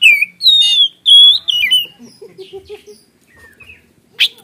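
Oriental magpie-robin (kacer) singing loud whistled phrases that swoop up and down, in quick bursts through the first two seconds. A quieter stretch with a short low note follows, and there is a sharp click near the end.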